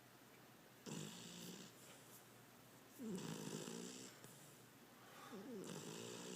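Beagle snoring in its sleep: three snores about two and a half seconds apart, each a low rattling breath with a hiss on top, the middle one the strongest.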